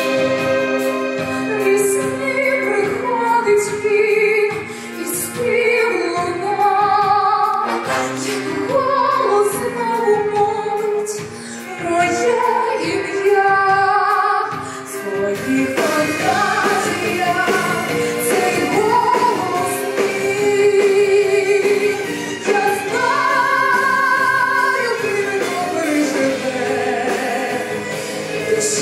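A woman sings a song from a French musical with a wide vibrato on her held notes, with a live orchestra accompanying her.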